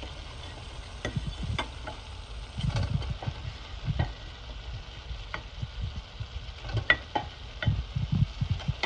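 Pot of onion-and-pepper sauce sizzling as fried salt fish pieces are laid into it, with scattered short clicks and soft knocks from the pieces going into the pot.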